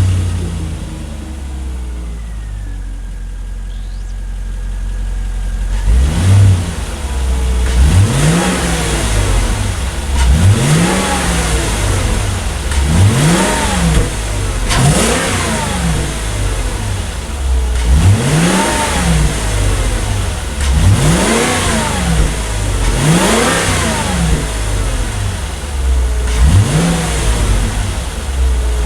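2010 Volvo S80's 4.4-litre V8 on its stock airbox intake, idling steadily, then revved in quick blips about every two to three seconds, about eight times, each climbing and falling back to idle.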